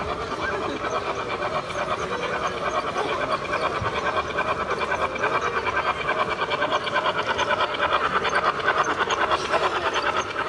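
LGB G-scale steam-outline model locomotive running along its track with a fast, even rhythmic chuffing, growing louder toward the end as the train draws near.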